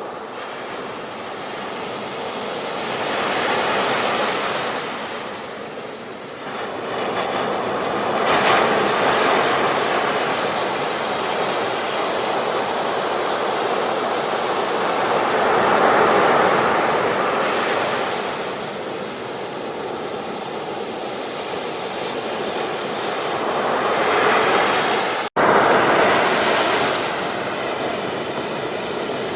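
Ocean waves breaking and washing up a beach, the surf swelling and ebbing every few seconds. A split-second gap in the sound comes about 25 seconds in.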